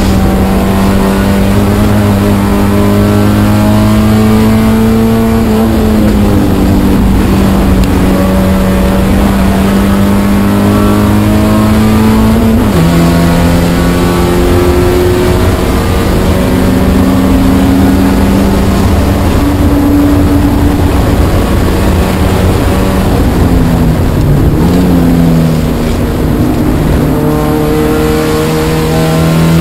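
Spec Miata's four-cylinder engine working hard on track, its pitch climbing steadily as the car accelerates. The pitch drops sharply at an upshift about 13 seconds in, then climbs again. Around 24 seconds in the revs fall and waver as the car slows for a corner, then rise again near the end.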